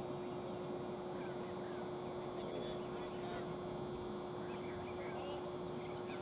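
Open-air ambience at a baseball game: a steady hum under a dense background wash, with many short faint calls scattered throughout. The calls are either distant voices or birds.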